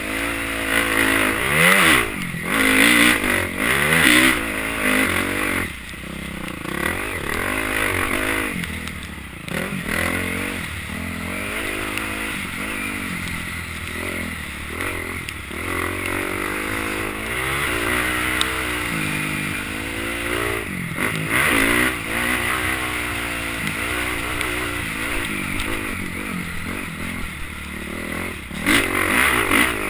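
Motocross bike engine heard from the rider's helmet camera, revving up and dropping back over and over as the rider accelerates, shifts and slows for corners.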